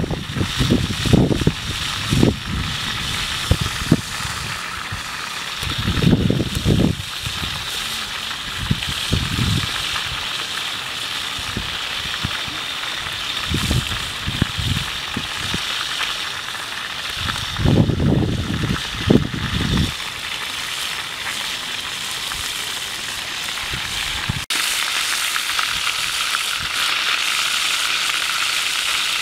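Two whole fish frying in oil in a wok over a charcoal stove: a steady sizzle. Low gusts of wind hit the microphone now and then in the first two-thirds, and about two-thirds of the way in the sizzle becomes closer and louder.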